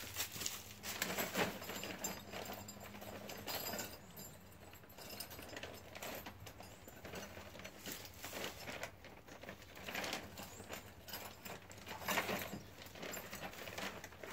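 Irregular footsteps crunching and rustling through dry fallen leaves, with a few louder steps.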